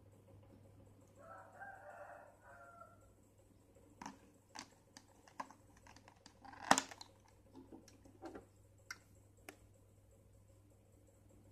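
Light clicks and knocks of stationery being handled over a plastic packing tray: a pencil is set down into the tray and a tin pencil case is lifted. The loudest knock comes a little past halfway. About a second in, a faint rooster crows once for about two seconds.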